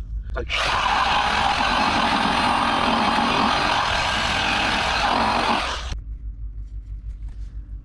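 Variable-speed buffer with a polishing pad running against a headlight lens on a final polishing pass. It starts about half a second in, runs steadily, and cuts off about six seconds in.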